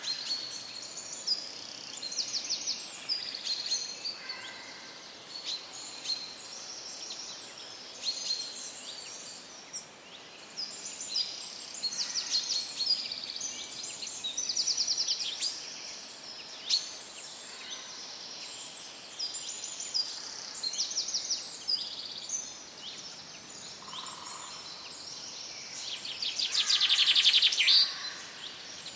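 Songbirds chirping and trilling, many short overlapping calls throughout, with a louder rapid trill near the end.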